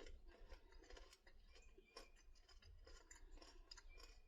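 Faint chewing of caramel-coated popcorn: a scatter of soft, irregular crunches.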